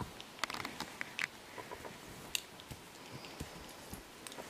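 A dog rolling on its back on the forest floor, with soft rustling and scattered crackles of dry needles and twigs under it.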